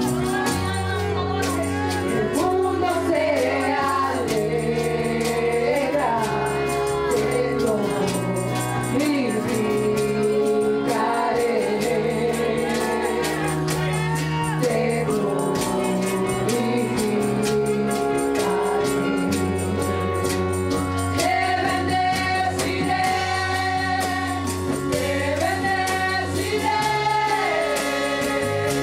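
Live gospel worship music: several women singing together into microphones, backed by a small band with a steady bass line and percussion.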